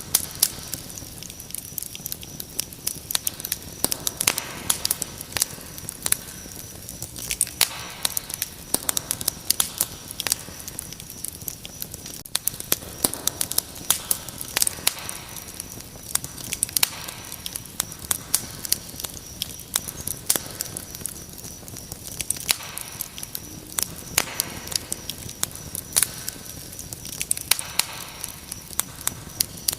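Wood fire crackling, with frequent irregular sharp pops and snaps. Under it runs a steady high chirring of crickets.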